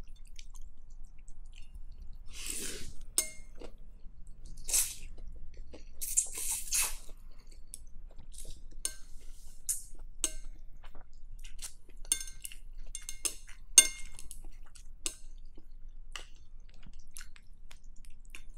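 Close-up eating sounds of pho: rice noodles slurped in a few long pulls in the first half, then chewing, with metal chopsticks clicking against a glass bowl throughout.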